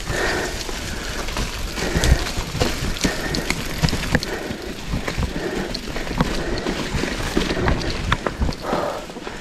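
Mountain bike riding over a rough dirt trail: steady tyre noise with frequent knocks and rattles over bumps, and wind buffeting the microphone.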